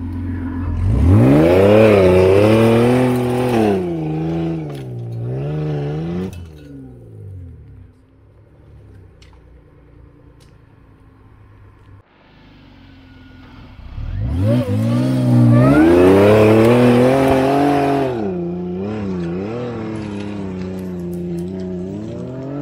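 Off-road 4x4 engine revving hard under load in two long pushes, the revs surging and wavering as the wheels spin and throw dirt. In between the engine drops back, and after the second push it settles to a steadier, lower run.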